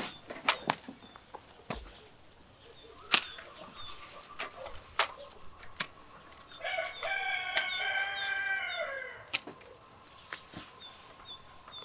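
A rooster crows once, a long call of about two and a half seconds starting around the middle. Around it come several sharp snips of hand pruning shears cutting peach tree branches, with faint high bird chirps repeating in the background.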